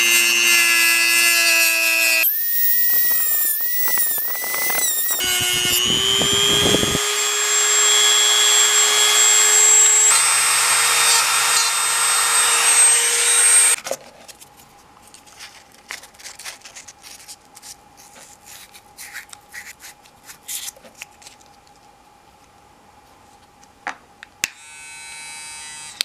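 Dremel rotary tool with a cutting disc running at high speed and cutting into the plastic housing of an electric toothbrush, its whine dipping under load, for about fourteen seconds before it stops. Then quiet handling clicks, and near the end a brief buzz from the electric toothbrush's vibrating motor.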